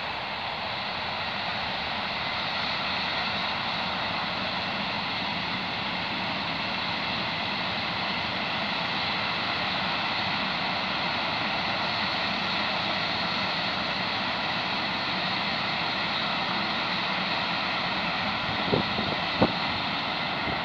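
Freight train hauled by two diesel locomotives passing across the field: a steady running noise of the locomotives and rolling wagons, with two short sharp knocks near the end.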